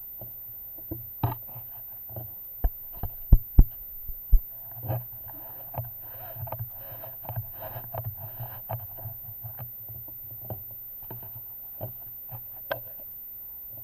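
Handling noise from the air rifle and its scope camera being moved and re-aimed: an irregular series of clicks and knocks, the sharpest few about three to four seconds in, then a stretch of rustling and scraping, then a few scattered clicks.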